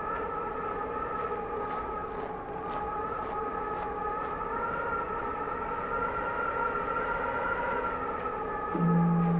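Whistling winter wind, several high tones that waver slightly in pitch. Near the end a large Japanese temple bell is struck, and its deep hum rings on.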